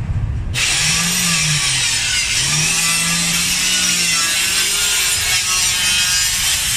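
Handheld electric saw cutting through a plywood board. The motor starts abruptly about half a second in and then runs steadily under load, its pitch wavering slightly as the blade is pushed along.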